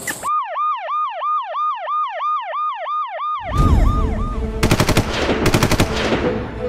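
An electronic siren sound effect: a tone that rises and falls about four times a second, cut off after about three seconds. Music then starts, with bursts of machine-gun fire sound effects.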